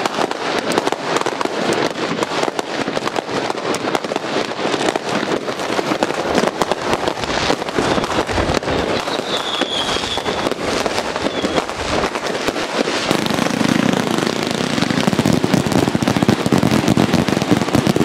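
Mandarin Fireworks Z-shape 30 mm cake (CZR-30-128) firing a rapid, dense barrage of shots and salute reports with crackling bursts. It grows somewhat louder in the last few seconds.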